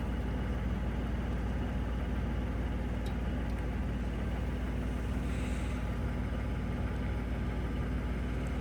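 An engine idling steadily, a constant low rumble with no revving.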